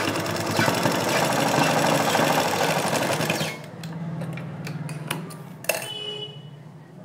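Black belt-driven straight-stitch sewing machine running fast, its needle clattering in a rapid even rhythm as it stitches lace onto fabric. The stitching stops about three and a half seconds in, leaving light clicks from handling the cloth and one sharp click near the end.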